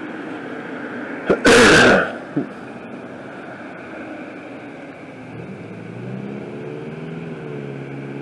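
A short, loud burst of noise about a second and a half in, then a passing car's engine note rising in pitch and levelling off over a steady background hum.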